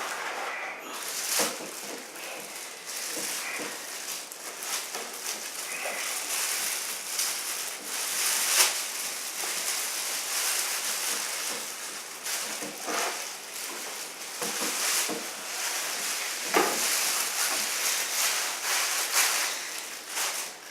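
Unboxing packaging being handled, a continuous crackly rustle of wrapping and packing material with frequent sharp crinkles and clicks, a few of them louder.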